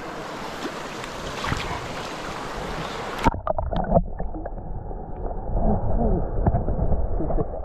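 Rushing water of a mountain trout stream for about three seconds, then the sound cuts suddenly to a muffled, dull rumble with scattered knocks.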